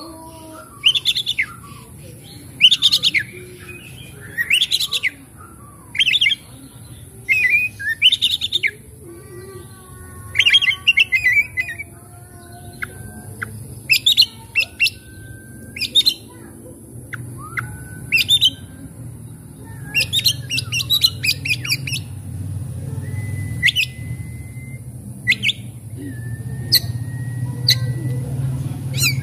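Oriental magpie-robin (kacer) singing: loud, short, varied phrases of chirps and whistles, one every second or two, with a few thin held whistles in the second half. A low hum grows underneath toward the end.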